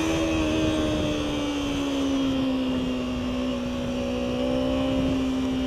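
Kawasaki Ninja 300's parallel-twin engine running at steady, fairly high revs while the bike is ridden. Its pitch sags slightly around the middle and climbs back, over a hiss of wind and road noise.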